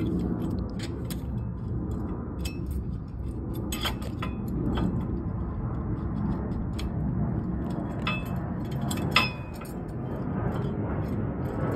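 Scattered metal clinks and taps of hand tools working on a truck's rear-axle flip-kit hardware, with one sharper clink about nine seconds in. A steady low rumble runs underneath.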